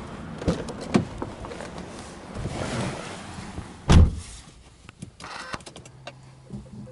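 Someone getting into the driver's seat of a parked Subaru Legacy B4 with the engine off: a couple of sharp door-handle clicks, the door swinging open, then a heavy thump about four seconds in as the door shuts. A faint low hum follows near the end.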